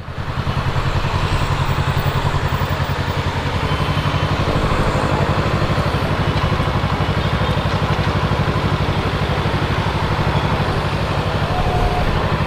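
Kawasaki Z650's parallel-twin engine idling steadily, its exhaust giving an even, pulsing beat.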